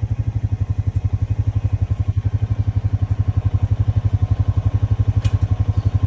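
ATV engine idling with a steady, even pulse of about eleven beats a second.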